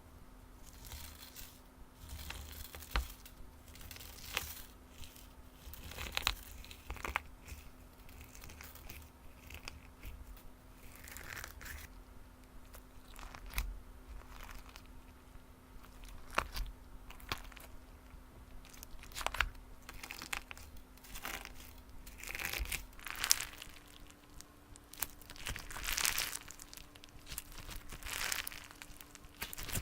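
Slime being worked by hand, giving irregular crackles, crinkles and pops.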